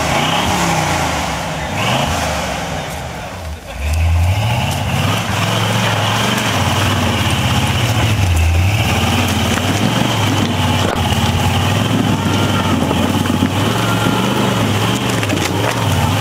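Off-road Jeep's engine revving hard on a steep dirt hill climb, its pitch rising and falling again and again as the driver works the throttle. It eases briefly about three and a half seconds in, then comes back louder and keeps revving.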